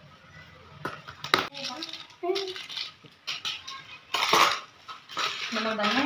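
A few sharp clinks and knocks of utensils against a steel mixing bowl as spices are added to a marinade, with handling noise and a brief voice near the end.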